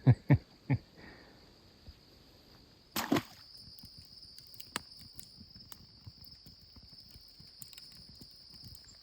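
Crickets trilling steadily at a high pitch, with a few sharp knocks in the first second and a louder thump about three seconds in.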